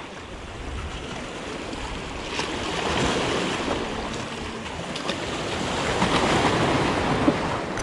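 Waves washing and surging, with some wind on the microphone. It swells louder about three seconds in and again toward the end.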